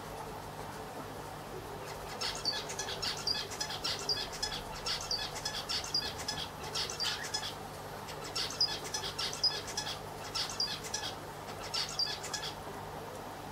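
A small bird chirping in quick runs of short high notes from about two seconds in until near the end. Underneath is a steady low hum.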